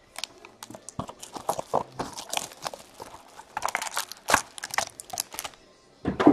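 Plastic shrink wrap crinkling and tearing in quick, irregular crackles as sealed trading-card boxes are unwrapped and handled, with a louder knock near the end.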